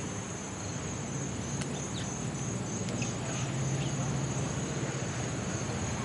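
Steady high-pitched insect trilling, with several short falling chirps of small birds and a low steady hum underneath.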